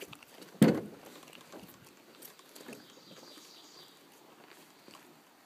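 A single sharp knock against the hull of a Swift Keewaydin 16 carbon canoe carried overhead, about half a second in, followed by faint scuffs and rustles.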